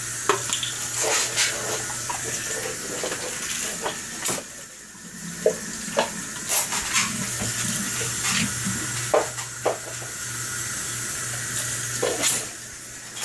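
Kitchen faucet running into a plastic measuring cup. Around the middle it breaks off for a few sharp knocks and clinks as the water is poured into a saucepan, then the water runs again.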